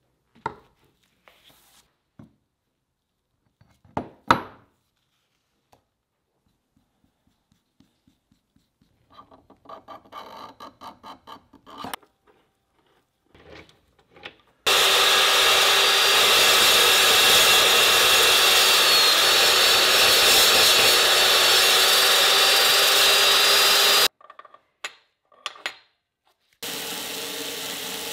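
Power chop saw running and cutting through a clamped block for about nine seconds, loud and steady with a held whine; this is the loudest sound. Before it come scattered knocks from handling and a few seconds of rapid rubbing, and near the end a belt grinder starts running, quieter and steady.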